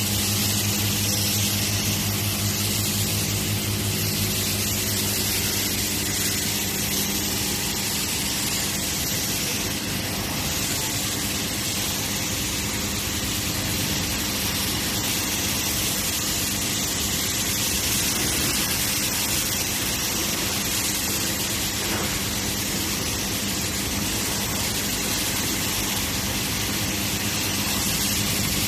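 High-pressure washer pump of a self-service car wash machine running steadily, a low motor hum under the hiss of water spraying.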